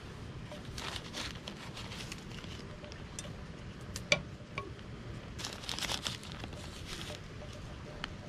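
Plastic packaging crinkling and rustling as it is handled, with scattered small clicks and one sharper tap about four seconds in.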